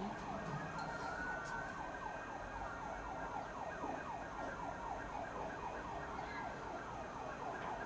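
Emergency-vehicle siren sounding in a fast yelp, its pitch sweeping over and over several times a second.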